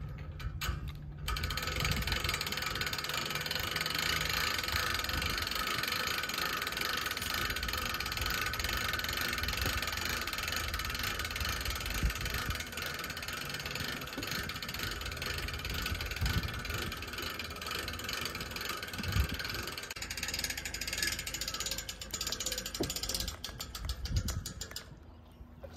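Hand-cranked boat trailer winch ratcheting continuously as it is wound, its pawl clicking rapidly while it draws the boat up onto the trailer. The clicking starts about a second in and stops shortly before the end.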